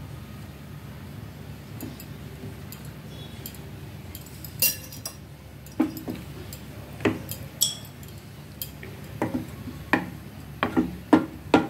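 Wooden spatula stirring a thin gravy in a stainless steel pot, knocking against the pot's sides. The knocks start about a third of the way in and come faster and louder near the end, over a steady low hum.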